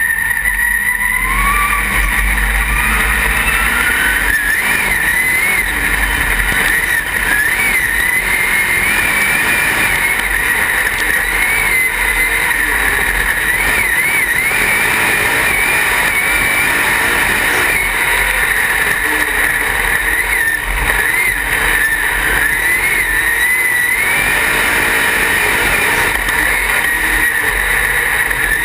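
Dirt-track race car engine at high revs, heard from inside the cockpit. Its pitch climbs over the first few seconds as the car accelerates, then rises and falls with the throttle.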